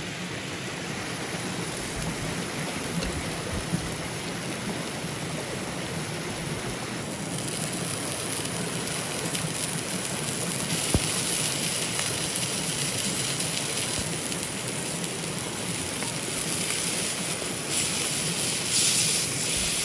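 A river flowing, a steady rushing water noise, with one sharp click about eleven seconds in.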